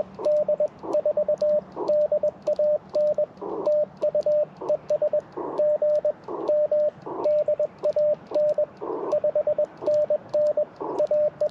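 Morse code (CW) from an Icom IC-705 ham radio transceiver: a steady mid-pitched tone keyed rapidly on and off in dots and dashes, with short bursts of band hiss in the gaps between characters.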